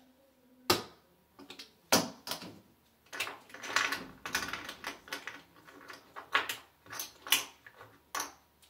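Casino chips clicking against each other as they are picked out of the rail and stacked by hand. A few separate clacks come first, then a quick run of clattering in the middle.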